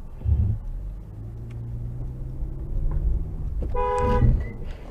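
A car horn sounding one short blast of about half a second near the end, over a steady low hum of road traffic.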